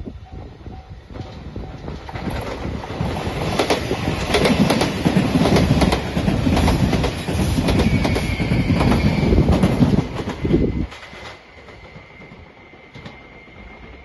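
JR Shikoku 8600 series limited-express electric train passing close by. Its rolling noise builds over a couple of seconds, then runs loud with rapid wheel clicks over the rail joints, and cuts off suddenly about eleven seconds in.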